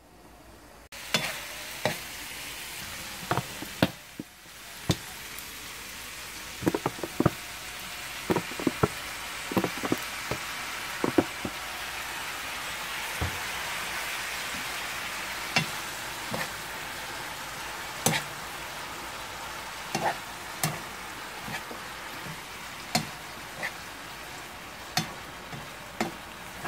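Dried anchovies, chili and bell pepper sizzling in a frying pan while a plastic spoon stirs them. The spoon knocks and scrapes against the pan at irregular moments, and the sizzle swells in the middle.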